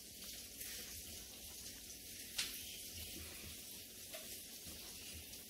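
Chef's knife slicing through a baked chicken breast on a plastic cutting board: quiet cutting strokes over a steady hiss, with one sharp tap of the blade on the board about halfway through.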